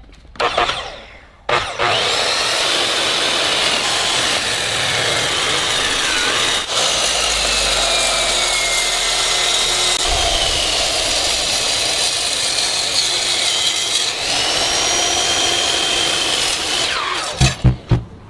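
Power tool cutting: a steady loud grinding noise with a high whine that slowly dips and rises in pitch, starting about a second and a half in and stopping shortly before the end.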